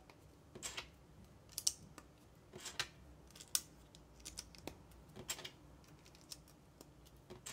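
LEGO plastic pieces clicking and clattering as they are handled and pressed together: a string of separate sharp clicks, roughly one a second.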